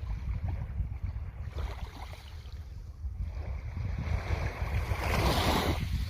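Calm sea: small waves lapping, with one wave washing in and swelling to a louder hiss about two-thirds of the way through, then falling away near the end. A steady low rumble of wind on the microphone runs underneath.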